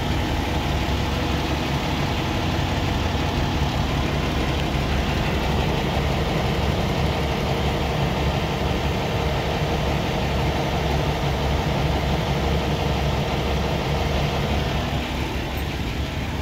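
Peterbilt 579's heavy diesel engine idling steadily, heard up close at the battery box.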